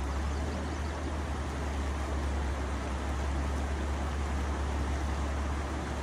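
Shallow river rushing over a rocky riffle: a steady, even rush of water with a heavy low rumble underneath.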